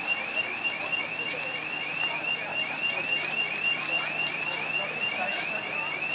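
Reversing alarm of a large mobile crane truck: a fast warbling chirp repeating about five or six times a second, with a faint low engine hum beneath.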